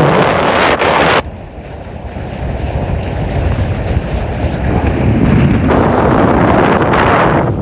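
Wind buffeting the microphone on a small boat at sea, over water washing against the hull. Loud gusts hit in the first second and again from about the middle to near the end.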